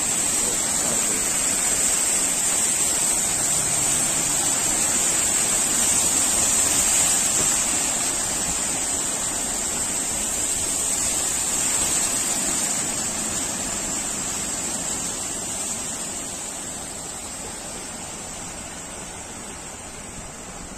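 Rushing, splashing water as cars and a van drive through deep floodwater on a road. It swells as vehicles pass close and fades over the last several seconds.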